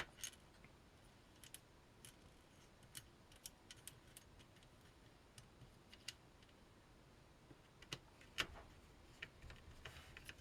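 Faint scattered small clicks and ticks from screws being driven into a ZX Spectrum's plastic case, with a sharper click about eight seconds in.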